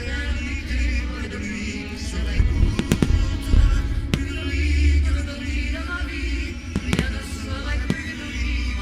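Fireworks bursting over a music soundtrack with singing and heavy bass. Sharp bangs cut through the music several times, the strongest near the middle and a few seconds before the end.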